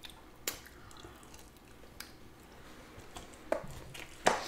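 Close-up eating sounds of noodles being chewed, with a few sharp clicks of forks against bowls and takeout containers, the loudest near the end.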